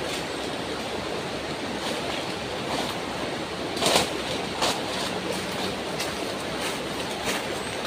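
A steady rushing noise, with a short burst of rustling and snapping leaves and stems about four seconds in and a smaller one just after, as a person pushes through undergrowth carrying a long wooden pole.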